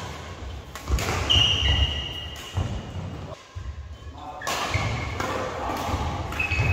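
Badminton doubles rally: sharp racket hits on the shuttlecock every second or so among the players' thudding footfalls on the court mat, echoing in a large hall.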